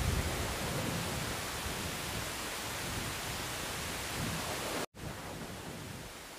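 Steady noise of waves washing against a concrete tetrapod breakwater, with wind gusting on the microphone. The sound cuts out for an instant about five seconds in, then comes back quieter.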